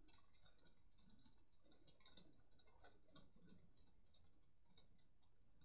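Faint, irregular ticking and clicking of Beyblade Burst tops spinning and knocking in a plastic stadium.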